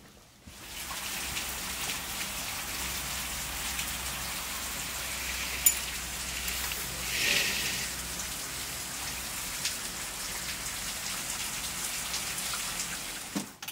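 Steady rain from a tropical storm falling on asphalt and trees, an even hiss that swells briefly about seven seconds in. A single sharp click sounds a little before the swell.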